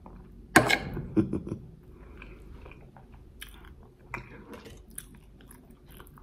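A person chewing a mouthful of rice with aubergine and dried fish, mouth open enough to be heard. There are two louder smacks about half a second and a second in, then softer wet chewing with small clicks.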